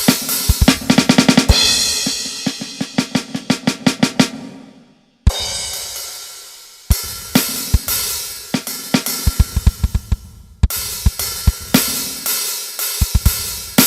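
Drum kit played in a sound check: snare and bass drum hits with cymbal wash, a fast roll of strokes in the first few seconds dying away to a brief silence, then loud crashes and more beats.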